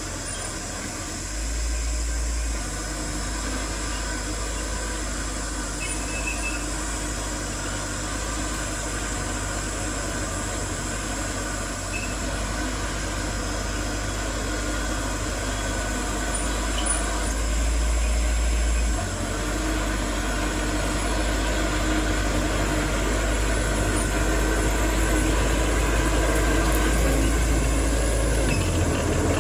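Diesel engines of heavy earthmoving machinery, a bulldozer and dump trucks, running steadily, briefly louder and deeper twice and growing louder toward the end.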